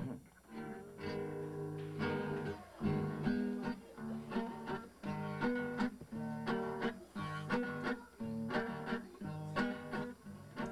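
Acoustic guitar played solo, chords strummed and plucked in a steady rhythm.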